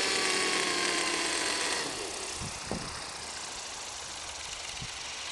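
Thunder Tiger Raptor nitro RC helicopter's glow engine running at a steady idle on the ground, then cutting out about two seconds in. After that there is only a steady hiss with a few soft thumps.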